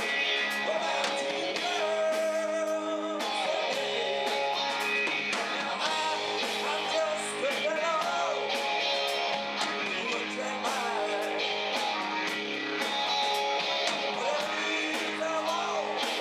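Live rock band playing, with a drum kit and an electric bass guitar keeping a steady beat.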